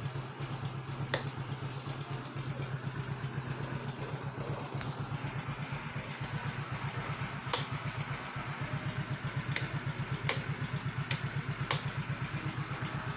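Yamaha Soul GT 110 scooter's single-cylinder engine idling with a steady, even pulsing beat. Several sharp clicks sound over it.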